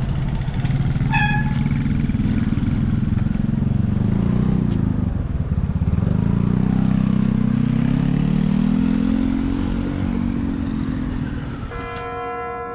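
Motorcycle engine running close by, its pitch rising and falling as it revs and passes, with a short horn beep about a second in. Near the end the engine sound drops away and a bell-like chime of several steady ringing tones begins.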